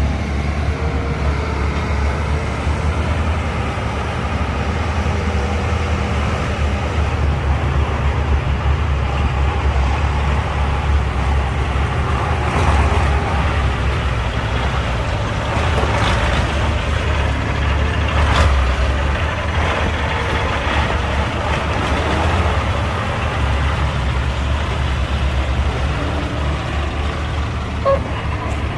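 Diesel engines of heavy earthmoving machines running under load with a steady low drone, with a few sharp knocks around the middle.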